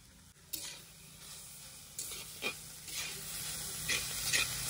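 Long steel spatula stirring and scraping leafy greens in a black iron kadai, over a faint sizzle from the hot pan. The strokes start about half a second in, come roughly once a second and grow louder toward the end.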